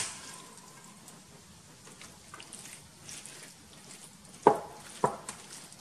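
Spoon scooping ground-meat sauce out of a stainless steel pan and spreading it over penne in a metal baking tray: soft scraping, with a sharp clink at the start and two loud knocks of the spoon against metal about half a second apart near the end.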